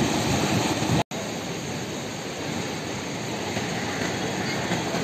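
Swollen floodwater rushing in the river, a dense steady roar of water noise. About a second in the sound cuts out for an instant, and a softer steady rushing noise follows.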